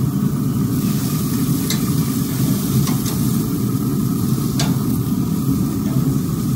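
Steaks sizzling on the hot grates of a pellet grill as they are turned with metal tongs, which click sharply against the grates a few times, over a steady low rumble.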